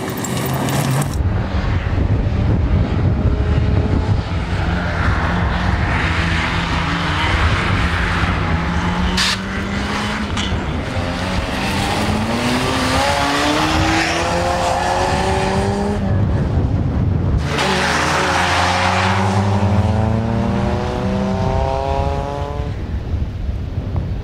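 Nissan Micra rally car's engine running hard under acceleration, its pitch climbing in long sweeps through the revs. The climb breaks off sharply about two-thirds of the way through, then rises again.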